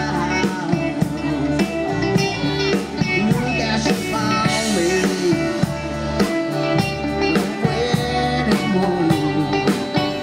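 Live country band playing with a steady drum-kit beat, guitars and a singing voice.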